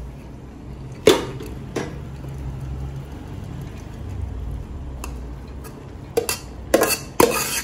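A spoon knocking against cookware while loosening and spreading cooked rice into a biryani layer: two sharp knocks about a second in, then a quick cluster of knocks near the end. A low steady hum runs underneath.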